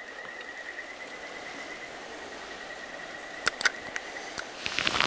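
Quiet outdoor ambience with a steady, faint high-pitched trill running throughout, broken by two sharp clicks about three and a half seconds in and a quick cluster of clicks near the end.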